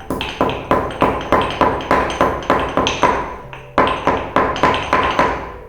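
Pestle pounding black peppercorns, cardamom pods and cumin seeds in a mortar to crush them: steady, ringing strikes about three a second, a short pause a little past halfway, then stopping near the end.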